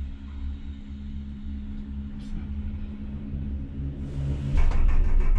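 Inside a Doppelmayr 10-seat detachable gondola cabin on the ride up: a steady low hum of the moving cabin. About four and a half seconds in, it gives way to a louder rattling rumble as the cabin rolls over the sheave rollers of a line tower.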